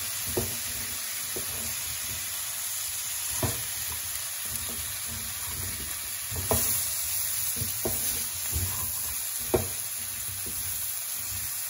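Spiced vegetables and green chillies sizzling steadily in oil in a non-stick pan while a spatula stirs them. A few soft scrapes and taps of the spatula against the pan come at irregular moments.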